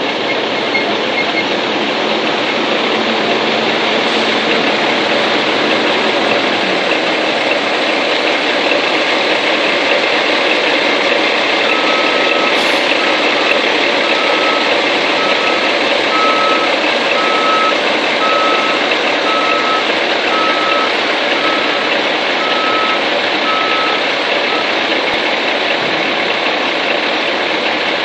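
A Freightliner FLD112SD tri-axle dump truck's diesel engine runs with a loud, steady noise as the truck moves. From about twelve seconds in until a few seconds before the end, a backup alarm beeps about once a second, and a fainter, quicker beeping is heard at the very start.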